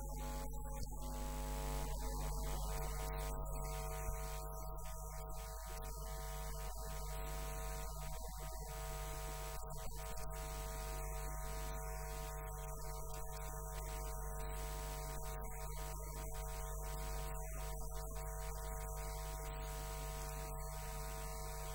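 Steady electrical mains hum: a deep, unchanging drone with a stack of steady overtones above it.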